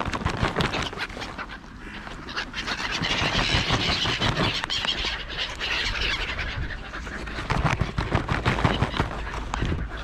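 Plastic peanut bag crinkling and rustling close by as it is handled, in dense sharp crackles, with gulls and crows calling.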